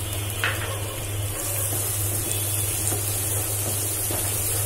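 Onions and spice paste sizzling as they fry in mustard oil in a nonstick pan, stirred and scraped with a wooden spatula, over a steady low hum.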